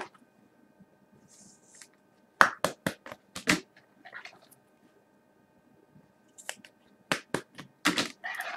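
Trading cards and their packaging being handled by hand: two clusters of sharp clicks and taps, about two and a half seconds in and again near the end, with a brief high rustle in between.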